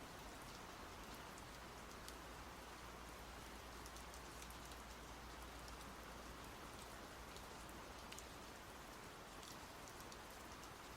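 Faint, steady rain falling, with scattered droplet ticks over an even hiss.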